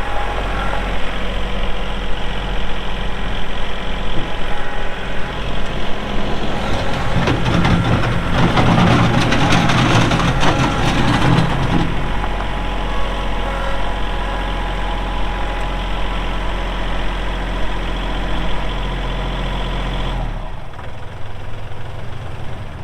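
Kubota L3301 tractor's three-cylinder diesel engine running. It grows louder for a few seconds in the middle, then its low hum stops about twenty seconds in, as if the engine is shut off.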